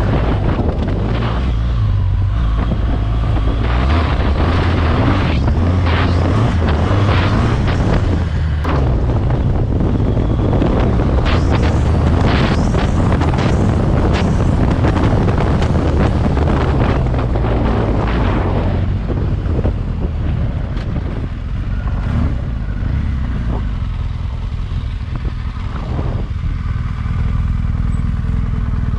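Adventure-touring motorcycle engine running while riding on a gravel track, with wind buffeting the microphone and frequent sharp knocks of stones and bumps under the tyres. In the last third the engine is quieter as the bike slows.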